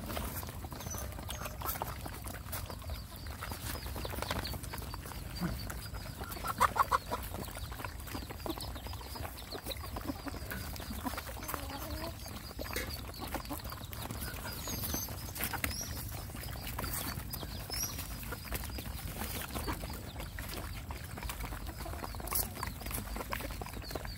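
Dogs, puppies and chickens feeding together off a plastic sheet: a scatter of pecking, chewing and scuffling clicks, with occasional chicken clucks and one short, louder call about seven seconds in.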